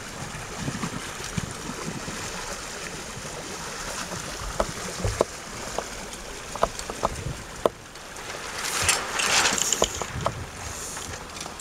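Wind buffeting the microphone over lapping water, with scattered sharp clicks and knocks; a louder rush of wind noise about nine seconds in.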